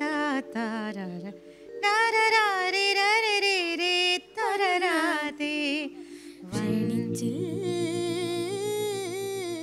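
A short ornamented sung phrase (a sangathi), first in a woman's higher voice without accompaniment, then from about six and a half seconds in a boy's voice over a sustained keyboard chord.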